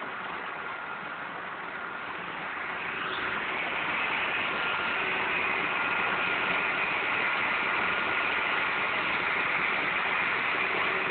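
Steady hissing drone of running machinery. It grows louder about three seconds in and then holds, with a few faint steady tones in it and no distinct tool strikes.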